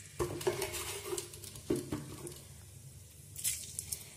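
Sugar sizzling and crackling in hot mustard oil in a steel kadai, with irregular pops and a few louder spits. It is caramelising to give the curry its colour.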